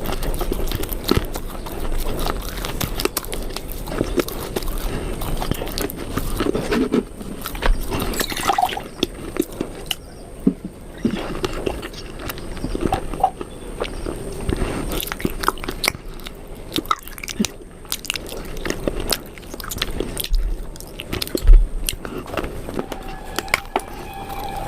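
Close-up crunching and chewing of hard, brittle pieces of baked clay pot, with many sharp, irregular crunches in quick succession.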